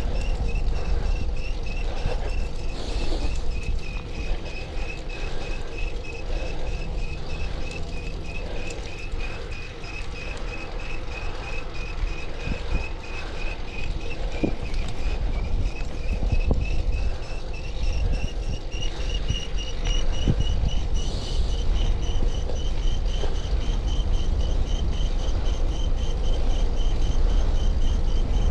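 Bicycle chain set with all its slack taken out, making a rhythmic high chirp as the bike rides along, the pitch creeping slightly higher later on. Heavy wind rumble on the microphone runs underneath.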